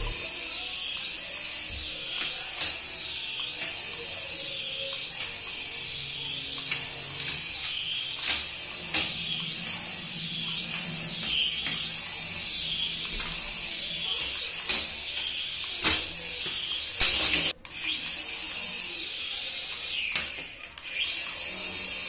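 Toy RC helicopter's small electric motors and coaxial twin rotors running, a steady high-pitched whine with a regular wavering. A few sharp knocks break in during the flight.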